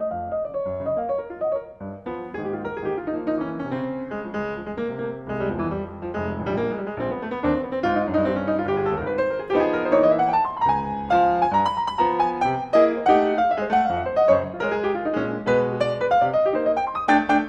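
Solo jazz piano on a Yamaha grand: quick runs of notes over low chords, with an upward run near the middle, growing louder about two seconds in.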